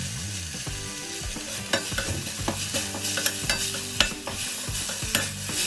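Tomato and onion masala sizzling in a stainless steel pan while a steel spoon stirs it. The spoon clinks and scrapes against the pan about five times.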